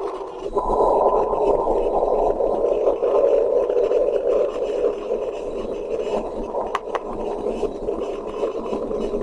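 Steady rushing roar of fighter jet noise, thin and muffled as if heard through a cockpit or radio, with a single sharp click about seven seconds in.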